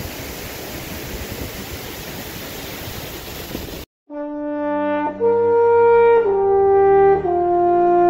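Steady rush of the Peguche waterfall, cut off suddenly just under four seconds in. After a brief silence, a channel intro jingle of held horn-like chords begins, stepping to new chords about once a second.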